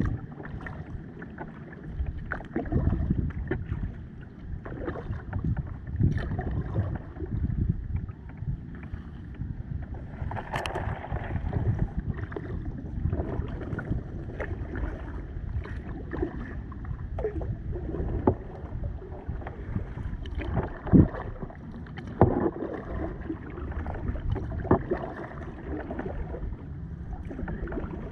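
Kayak being paddled: repeated paddle strokes through the water, with a few sharper knocks, the loudest about two-thirds of the way in.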